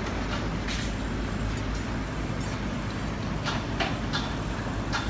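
Construction-site noise: a steady low rumble of machinery with a few short, sharp knocks scattered through it.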